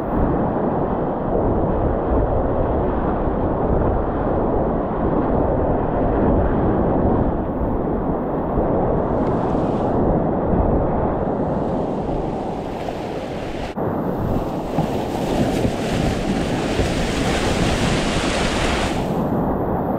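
Rushing whitewater of a river rapid heard close up from a kayaker's helmet camera, with water and wind buffeting the microphone. The hiss of splashing water turns brighter a little past halfway and stays strongest for several seconds before easing near the end.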